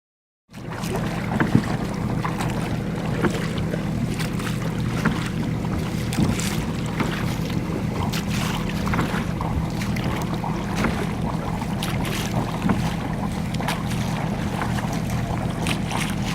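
Yacht under way at sea: a steady low hum with frequent splashes and knocks of water on the hull, and wind on the microphone. It starts about half a second in.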